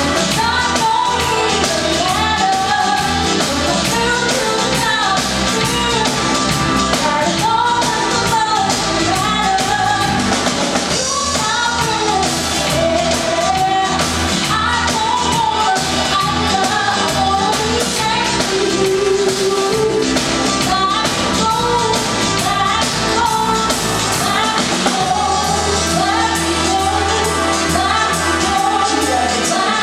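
Live band playing a song with a lead singer over drums and amplified instruments during a sound check.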